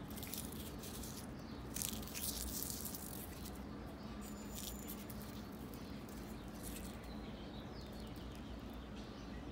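Dried rose petals crackling as fingers crush and crumble them, in quick crisp bursts, thickest in the first few seconds and then scattered, over a steady low hum.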